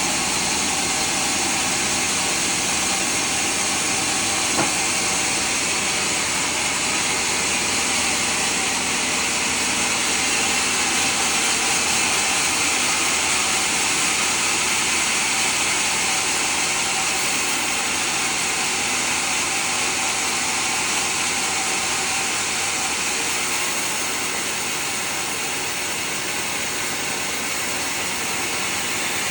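Sawmill saw blade cutting through a large teak log, a steady hissing whine with no break in the cut. A single brief knock about four and a half seconds in.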